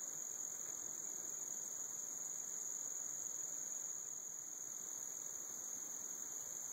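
Steady insect chorus, a continuous high-pitched shrilling that holds level without breaks.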